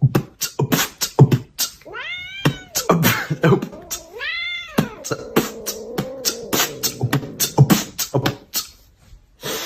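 A domestic cat meowing twice, each call rising and then falling, amid a run of sharp clicks and knocks.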